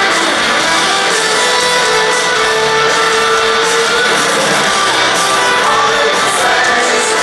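Rock band playing loudly live in concert, guitars prominent, recorded from the audience.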